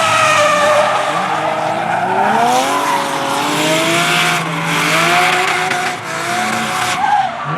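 Nissan Silvia S14's swapped RB26 2.6-litre straight-six turbo engine revving hard while drifting, its pitch rising and falling with throttle, over squealing tyres.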